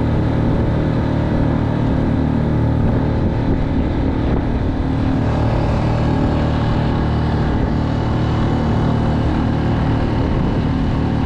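Outboard motor of a small open boat running steadily at speed, with wind and water rushing past the hull.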